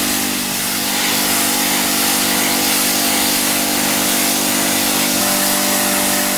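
Hot-water pressure washer running: a steady hiss of the water jet hitting a steel wheel rim over the steady hum of the pump motor.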